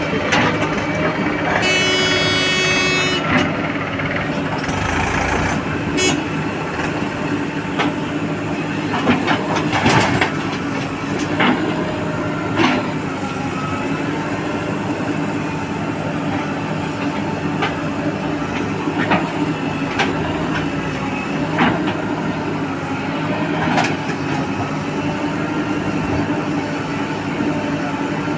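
Heavy vehicle engine running steadily, with a horn honk lasting about a second and a half near the start and scattered knocks and clanks throughout.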